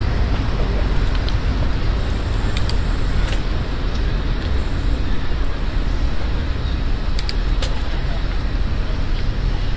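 Steady downtown traffic noise heard from a moving bicycle: engines and tyres of cars and a city bus passing close alongside, with a heavy low rumble throughout. A few brief clicks stand out.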